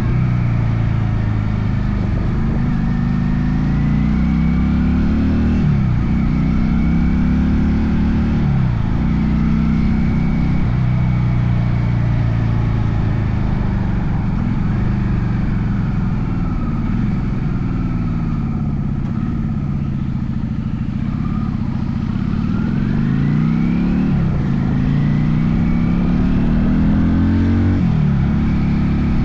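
Honda Shadow VLX 400 motorcycle's V-twin engine running under way. Its pitch climbs and then drops back sharply about six times, as when it revs up through the gears.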